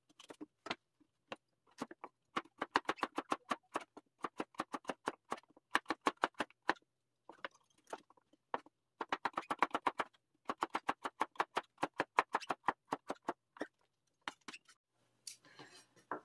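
Kitchen knife slicing a Korean radish on a cutting board: quick runs of sharp chopping strokes, several a second, broken by short pauses.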